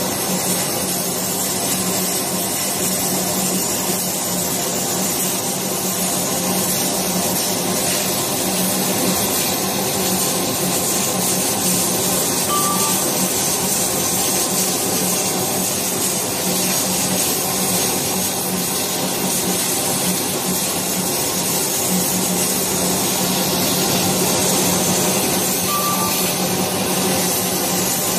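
CO2 laser cutting machine running as it cuts paper: a steady noise with a low hum.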